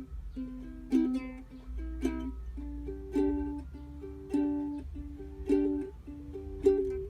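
Ukulele playing an instrumental passage: picked notes in a high, narrow range, with an accented strum about once a second.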